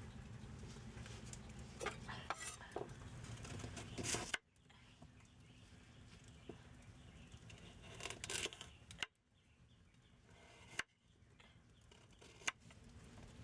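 Kitchen knife cutting carrots on a wooden cutting board: a handful of short, sharp knocks of the blade striking the board, spaced irregularly.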